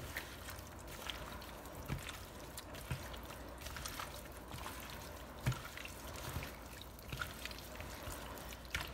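Raw chicken pieces squelching in an oily lemon-juice marinade as a gloved hand kneads and turns them in a plastic bowl, with irregular small wet clicks.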